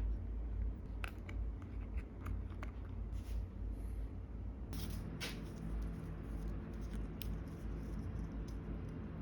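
Small clicks, taps and brief rustles of hands handling miniature craft pieces and materials on a work surface, over a low steady hum.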